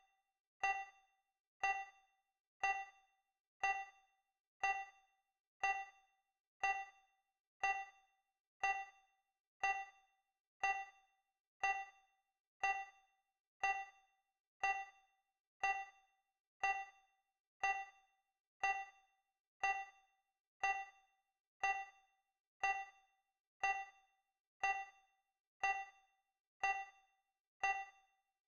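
Countdown timer sound effect: a short, bright electronic ping once every second, each fading quickly.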